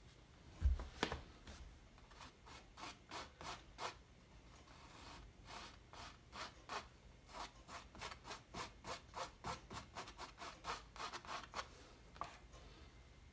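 Scissors scraping and dabbing black acrylic paint across a stretched canvas in short rubbing strokes, about two or three a second. A low thump comes near the start.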